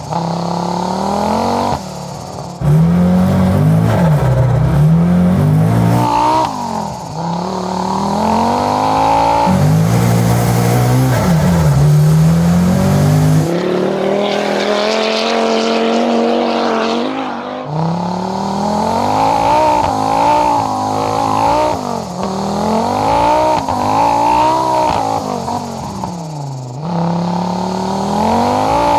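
1983 Audi Quattro A2 Group B rally car's turbocharged inline-five engine revving hard, rising and falling again and again as the car is driven sideways on ice. Around the middle the engine note drops back for a few seconds under a hissing noise.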